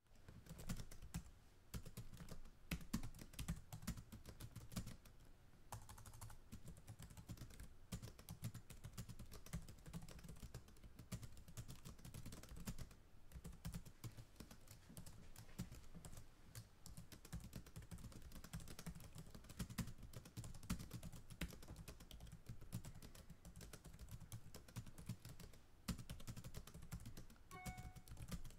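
Computer keyboard typed fast, recorded close: a dense, continuous run of key clicks with some louder keystrokes.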